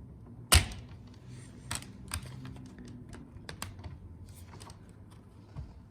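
A sharp plastic snap about half a second in, then scattered light clicks and taps: a flathead screwdriver prying up and popping the latch of a cable connector on a Lexus LX470 climate-control circuit board.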